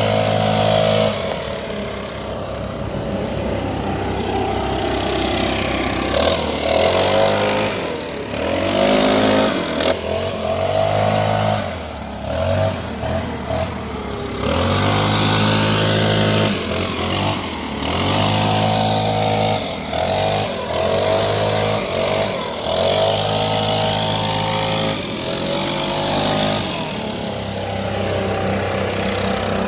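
Leaf blower running, its pitch rising and falling over and over as the throttle is opened and eased off.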